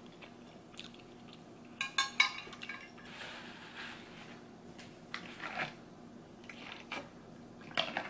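Metal chopsticks and dishes being handled and set down on the table. A quick clattering rattle about two seconds in is the loudest moment, followed by soft rustling and a few scattered clicks.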